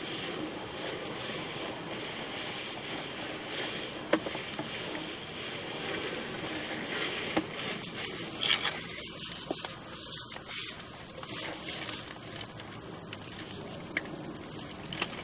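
Sewer inspection camera and its push cable being pulled back through a lined sewer pipe: a steady scraping rustle with a few sharp clicks.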